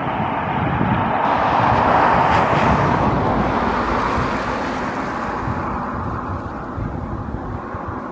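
A car passing by on the road: its rushing sound swells to a peak about two seconds in, then slowly fades away.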